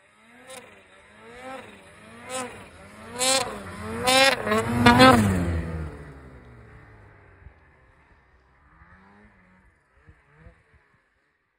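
Ski-Doo 850 turbo snowmobile's two-stroke engine revving up and down about once a second as the sled approaches through deep snow. It passes close about five seconds in, at its loudest, then fades quickly as it moves away.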